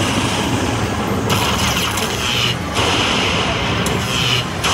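Slot machine game sounds, loud and dense, in three stretches of a second or so with short breaks between them.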